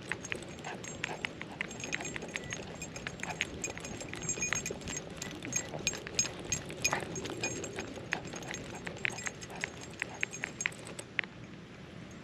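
A dog moving about, its collar tags jingling and its paws clicking in a rapid, irregular patter that stops about eleven seconds in.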